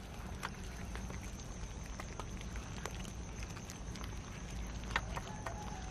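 A crowd of cats eating cooked rice off the ground: scattered small clicks and smacks of chewing and lapping, irregular and overlapping.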